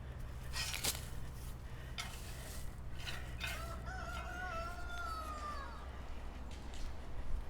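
Rooster crowing once, a single drawn-out call of about two seconds that falls in pitch at its end. A few sharp knocks come before it, over a steady low drone.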